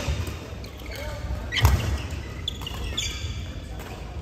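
Badminton rally: sharp racket strikes on the shuttlecock, the loudest a little over one and a half seconds in, with shoes squeaking and feet thudding on the court mat.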